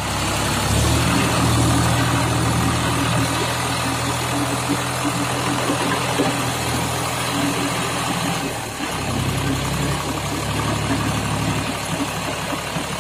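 John Deere 5104 tractor's three-cylinder diesel engine running steadily under load as it pulls a rotavator through wet mud. The engine sound dips briefly about two-thirds of the way through.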